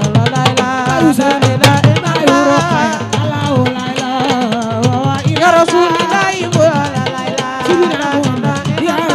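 Baye Fall zikr song: a woman singing a wavering devotional chant over hand drums beating a quick, steady rhythm.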